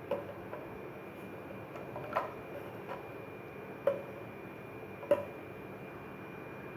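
A spoon clicking against a vessel four or five times, a second or two apart, as spoonfuls of ground cumin are measured into water, over a faint steady high tone.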